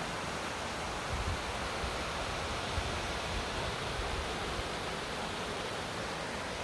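Steady rushing of a waterfall and mountain stream, a constant even roar of falling water.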